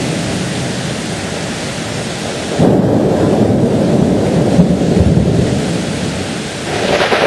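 Steady heavy rain, then about two and a half seconds in a loud thunderclap breaks into a rolling rumble that lasts several seconds, fading and swelling again near the end.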